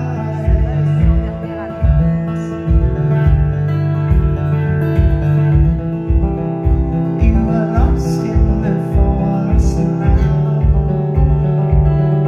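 Live acoustic guitar played in a steady strum over a foot-pedal bass drum beating about twice a second: one-man-band music.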